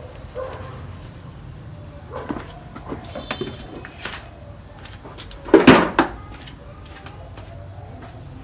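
Scattered knocks and clatter of hard objects being handled, with one much louder bang a little past halfway.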